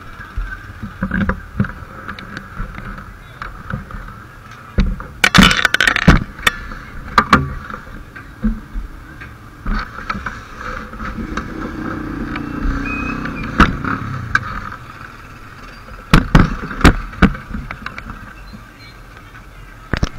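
Knocks, bumps and rubbing on a body-worn action camera's built-in microphone as the wearer moves about, over a steady background hum, with faint voices now and then.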